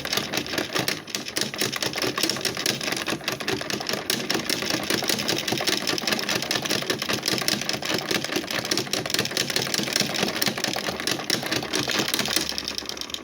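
Electrolux LSI09 washing machine spinning its load, a steady, loud, rapid rattling clatter that dies down near the end.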